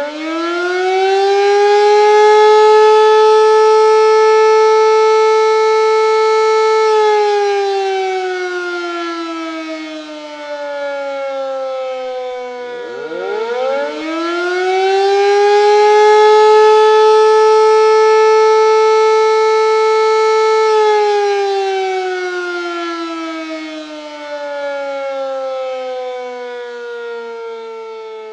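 Tsunami and earthquake warning siren sounding two long wails. Each quickly rises in pitch, holds a steady tone for several seconds, then slides slowly down. The second wail starts about halfway through.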